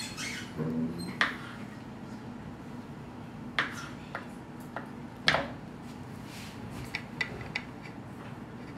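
Scattered light clicks and taps of plates and toasted bread being handled on a table, about eight short sharp ones spread out over low room noise.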